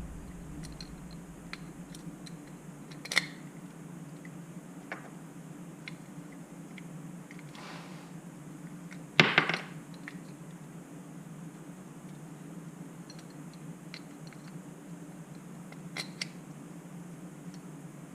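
Light clicks and knocks of a fishing reel and its small parts being handled, scattered over a steady low hum, with the loudest knocks bunched together about nine seconds in.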